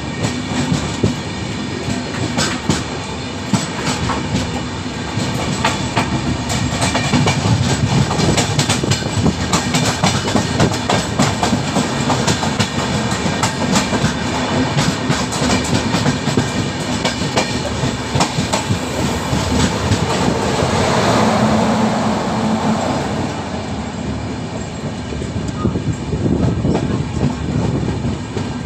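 A goods train of Indian Railways BOXN open-top wagons passing close by: steel wheels clattering rhythmically over the rail joints over a low rumble. The sound swells a little past the middle and eases slightly near the end.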